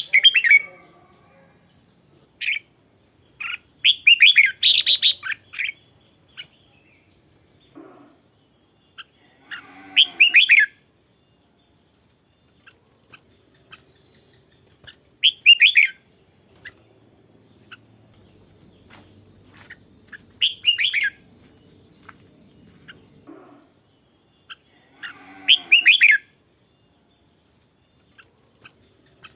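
Red-whiskered bulbul singing: short, loud, warbled song phrases repeated every few seconds, with pauses between them.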